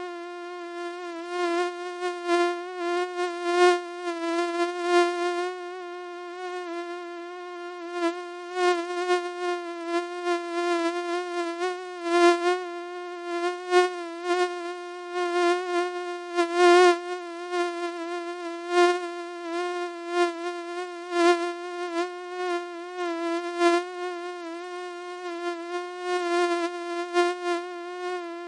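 Mosquito whining in flight: one continuous buzzing tone with many overtones, wavering slightly in pitch and swelling louder and softer every second or so as it passes close.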